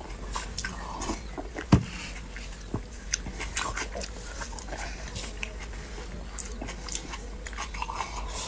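Close-miked eating sounds: a person biting and chewing soft braised pig brain, with wet mouth clicks and smacks and sips from a glass. A single sharp knock about two seconds in stands out as the loudest sound.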